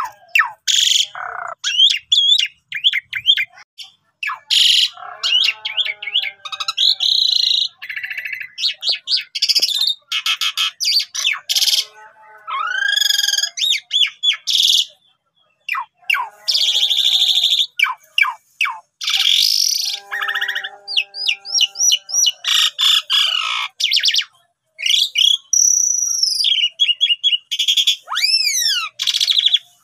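Asian pied starling in full song: a long, varied run of quick sweeping whistles and harsh, buzzy chattering phrases, broken by short pauses.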